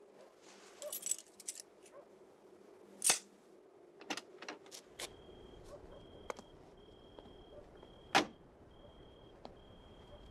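Car keys jangling as they are handed over, then a car door clunking shut. A few clicks follow, then a repeating high beep, about one and a half a second, over a low rumble, and a second door slams shut.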